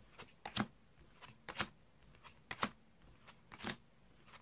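Playing cards dealt one at a time from two packets onto a cloth mat. There is a light snap about once a second, with fainter card ticks between.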